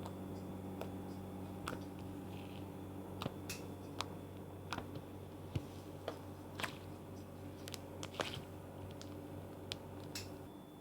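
Slime being handled and squeezed by hand, giving irregular small clicks and pops over a steady low hum.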